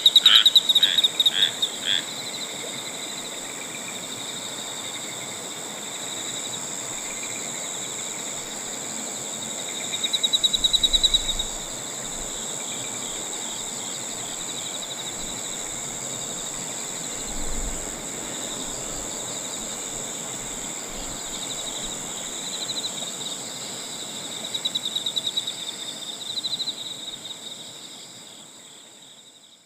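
Night chorus of insects, a steady high-pitched drone of crickets, with frogs croaking in rapid pulses for the first two seconds. Louder pulsed trills come twice, about ten seconds in and again near the end, before the sound fades out.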